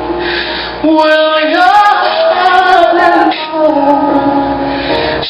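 Gospel song playing, with a woman singing long, sliding held notes over the music.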